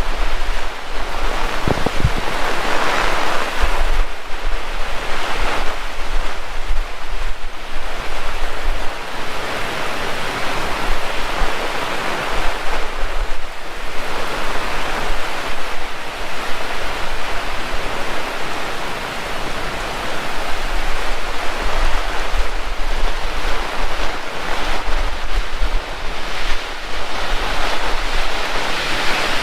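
Heavy rain pouring down in a dense, steady hiss that surges and eases every few seconds, with gusts of strong wind buffeting the microphone.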